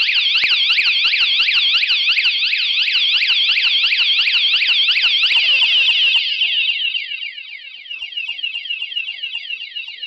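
KS-SF22R vehicle anti-theft alarm sounding its electronic siren: a fast, steady warble of repeated sweeping tones, very loud. About six seconds in it drops sharply in loudness and stays quieter.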